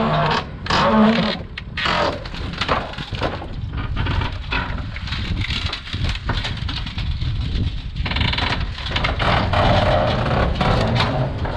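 A tractor engine running under load while it drags a heavy wooden grain tank across a flatbed trailer deck: wood and steel scraping, creaking and knocking, with many sharp cracks and bangs as the tank shifts and tips.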